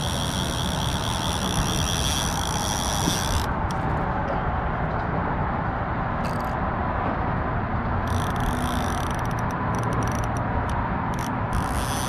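Steady rumble of road traffic crossing the bridge, with a high whine on top that drops out about three and a half seconds in and comes back, flickering, near the end.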